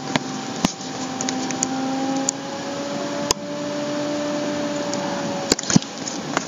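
Steady machine hum with a faint tone that slowly rises and falls. A few sharp clicks land over it.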